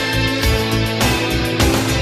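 Background music with a steady beat, bass and guitar.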